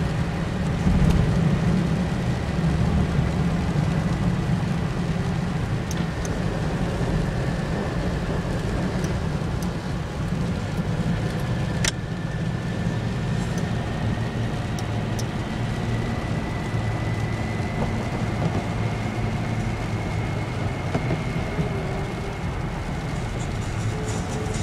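Car in motion heard from inside the cabin: a steady low engine and road rumble, with a faint high whine that rises slightly in pitch past the middle. One sharp click about twelve seconds in.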